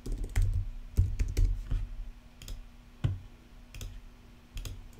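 A few separate keystrokes and clicks on a computer keyboard, spaced out with pauses, the first ones carrying a dull low thud.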